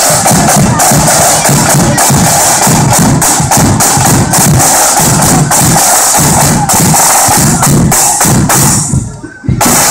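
A marching band's side drums beating loudly close by, a steady run of strokes. The drumming drops away briefly about nine seconds in, then starts again.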